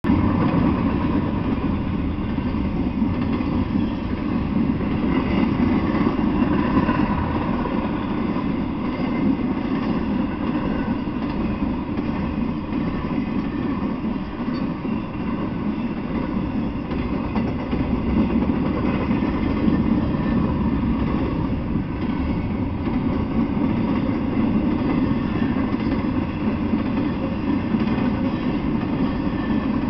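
Double-stack intermodal container freight train rolling past: a steady, unbroken noise of steel wheels on the rails and the cars going by.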